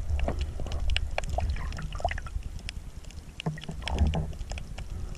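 Shallow seawater sloshing and lapping, with a low rumble on the microphone and scattered small clicks and splashes.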